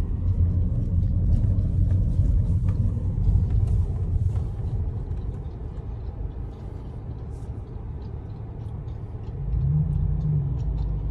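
Car road noise from inside the cabin: a low, steady rumble of tyres and engine, louder for the first few seconds, then easing off and swelling again near the end.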